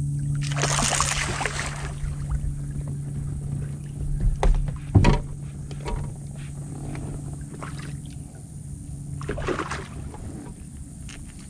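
Steady low hum of the bass boat's motor, broken by two bursts of splashing and a few sharp knocks as a hooked smallmouth bass is fought to the boat.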